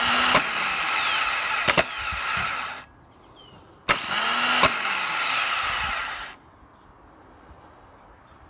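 Bosch starter motor from a 2005 Vauxhall Vectra C run on the bench off 12 volts, spinning freely after its brush gear was renewed. The first run stops about three seconds in. About a second later the solenoid clicks in again, throwing the Bendix pinion forward, and the motor spins for a second run of about two and a half seconds.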